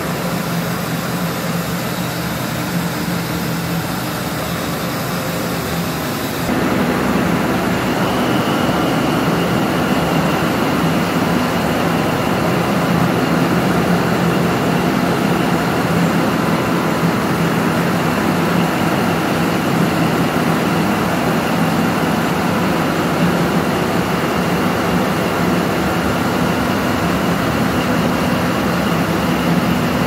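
Diesel machinery running steadily in a tugboat's engine room: a dense, even drone with a steady low hum. It steps up suddenly and grows louder and fuller about six and a half seconds in.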